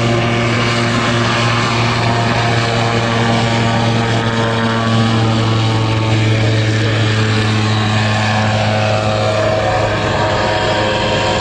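Light seaplane's propeller engine running steadily at high power on takeoff, a continuous drone whose pitch drops slightly near the end.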